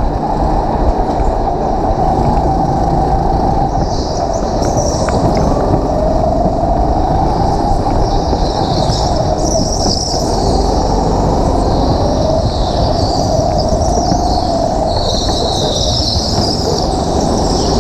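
Go-kart engine running hard on track, its pitch rising and falling with the throttle, with several bursts of high-pitched tyre squeal through the corners.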